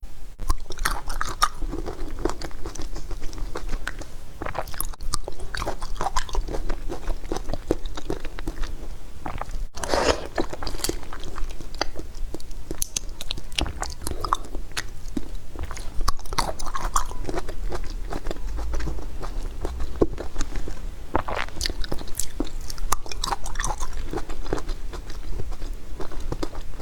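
Close-miked bites and crunchy chewing: a person crunching through a hard, brittle food, with a steady run of irregular crackles and a few louder bites.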